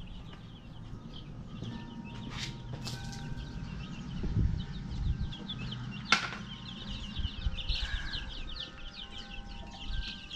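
A brooder full of baby chicks peeping constantly, a dense stream of short, high, falling cheeps. A few sharp knocks sound over it, the loudest about six seconds in.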